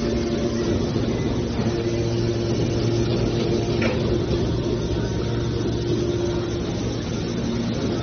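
Hydraulic scrap metal baler running: a steady mechanical hum from its pump and motor.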